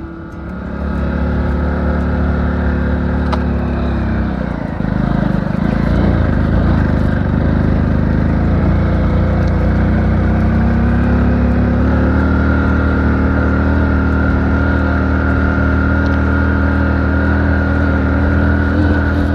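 Hero HF Deluxe's single-cylinder four-stroke engine running under load as the motorcycle rides through soft sand. The engine note dips around four seconds in, then climbs back and holds steady, with a thin high whine joining about twelve seconds in.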